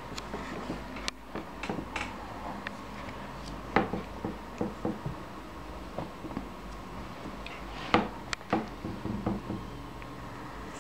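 Scattered light clicks and knocks from a puppy playing with a rope toy and a hand teasing it, over a faint steady hum. Two sharper knocks stand out, about four seconds in and again near eight seconds.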